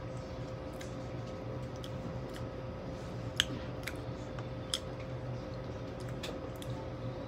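Close-up eating sounds: scattered soft crunches, clicks and mouth noises from chewing and handling crisp bacon and toast, with two sharper clicks a few seconds in, over a steady low hum.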